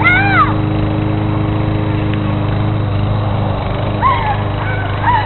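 A steady, low motor drone runs throughout. Over it a dog gives short, high, rising-and-falling yips: a burst at the very start and another about four seconds in.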